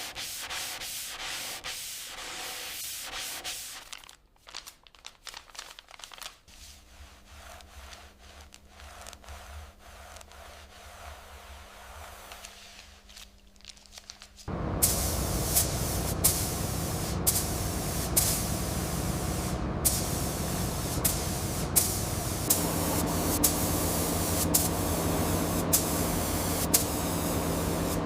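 Rubbing like sanding for the first few seconds, then a quieter stretch with a faint steady hum. About halfway in, a loud, steady hiss of compressed air from an air tool starts abruptly, with sharp clicks about once a second.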